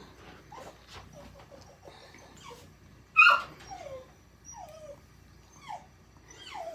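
A pet giving a series of short whining calls, each falling in pitch, about five in all, the loudest about three seconds in.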